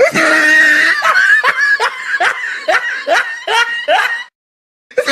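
Loud laughter in a quick rhythmic run of 'ha' bursts, about two or three a second. It cuts off abruptly about four seconds in and starts again near the end.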